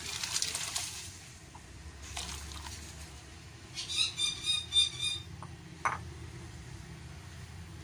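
Soaked chana dal and its water poured from a glass bowl into a steel pot of hot spiced water, splashing in the first second and then settling. About four seconds in, a quick run of high squeaks, then a single click.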